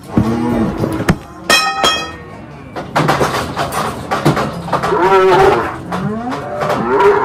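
Calves bawling in the yards, several calls with the loudest about five seconds in and another at the end; the calves were taken off their mothers the night before. A few knocks in between.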